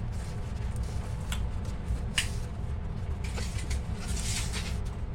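Reed Clean Ream reamer, driven by a drill, cutting old pipe out of a 1-1/2" plastic fitting so the fitting can be reused. It makes a steady low rumble, with bursts of scraping about two seconds in and again for most of the second half.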